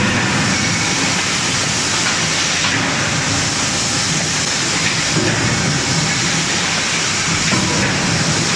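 Steady loud hiss and rumble of forging-workshop machinery, with no distinct hammer blows standing out.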